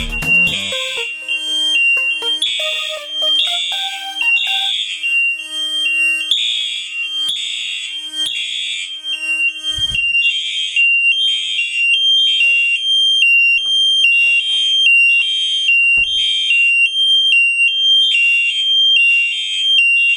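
Fire alarm horn sounding in a steady repeating pattern, about once a second. Each buzzy blast alternates with a steady high tone.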